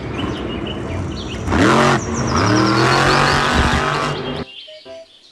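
Blue Thunder monster truck's supercharged V8 engine revving hard, its pitch rising and falling twice. About four seconds in it cuts off suddenly, and a few short musical notes follow.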